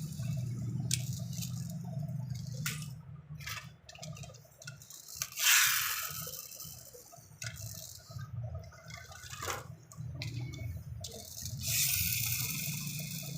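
Handling noises: rustling and scraping with scattered small clicks, the loudest rustle about halfway through, over a low steady hum.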